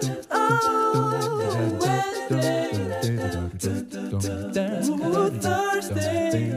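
Background music sung a cappella: several voices singing and humming together in harmony over a low bass part, in short phrases.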